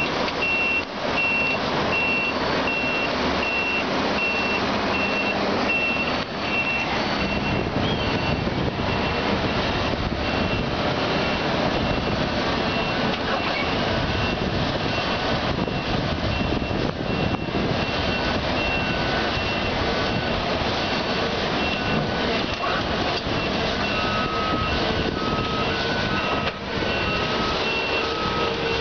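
Lonking CDM6365H crawler excavator's Cummins diesel engine running steadily as it digs and tracks, with a back-up alarm beeping about twice a second; a second, lower-pitched alarm joins near the end.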